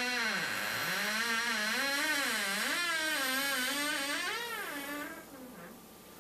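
A single wailing tone that slides slowly up and down in pitch with a quick wobble, fading away about five seconds in.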